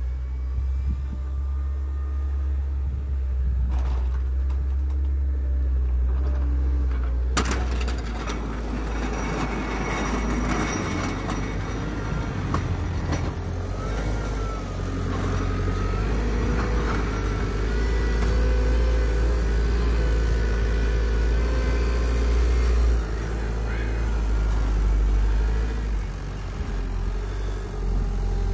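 Caterpillar 906 compact wheel loader's diesel engine running as the machine manoeuvres, its pitch shifting as it works, over a steady low rumble. A sharp knock comes about seven seconds in, and a wavering higher whine rises and falls through the middle.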